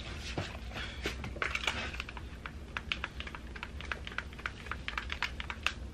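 Light, irregular clicks and taps, several a second, from makeup bottles and brushes being handled, over a faint steady low hum.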